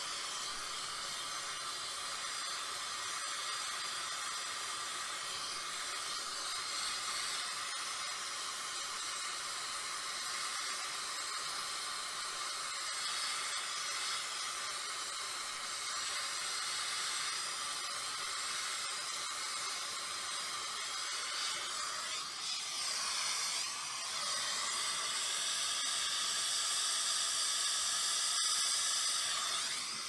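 Acetylene torch flame hissing steadily while brazing a filter drier into a copper refrigerant line, a little louder in the last few seconds.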